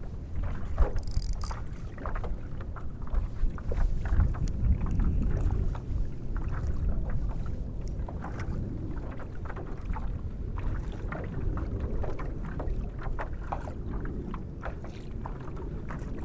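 Fishing kayak afloat: a steady low rumble of water and wind on the microphone, with many small irregular clicks and knocks.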